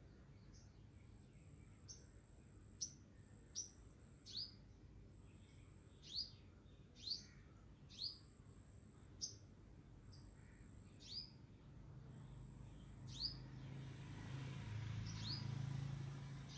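A bird chirping faintly and repeatedly: short, quickly falling chirps about once a second. A soft scratchy noise swells near the end.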